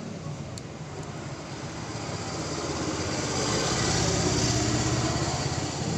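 A motor vehicle's engine running close by, growing louder over the first few seconds and easing slightly near the end.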